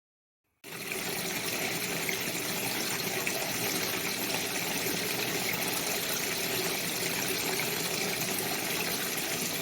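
Water gushing steadily into a Panasonic NA-VX7200L washing machine through its newly replaced water inlet valve, starting abruptly about half a second in: the valve is opening and the machine is filling normally again.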